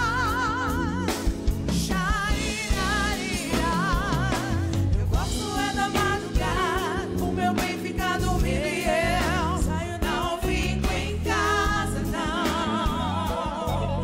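Women singing a soul-pop song with wide vibrato, backed by a live band of drum kit and electric guitar.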